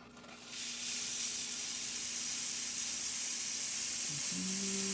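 Pasquini espresso machine's steam wand opened, letting out a steady hiss of steam that builds up over the first second. A low hum joins in near the end.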